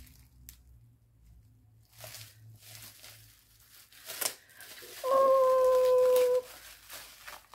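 Wrapping paper rustling softly as a gift is unwrapped, then about five seconds in a woman's high held squeal of delight, a little over a second long and falling slightly in pitch.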